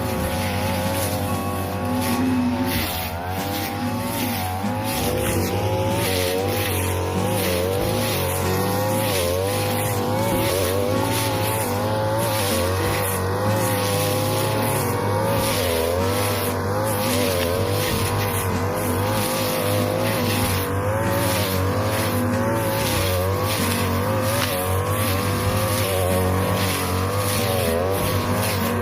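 42cc brush cutter engine running at high speed, its pitch wavering up and down as the blade cuts through tall, flattened cogon grass.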